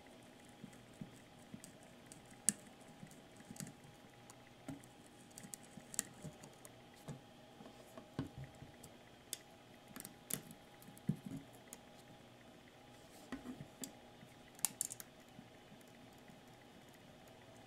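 Irregular small clicks and ticks of steel needle-nose pliers gripping, rocking and twisting electrolytic capacitors off a circuit board, over a faint steady hum.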